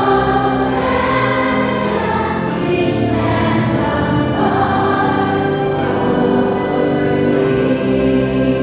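Choir singing a sacred song in long held notes.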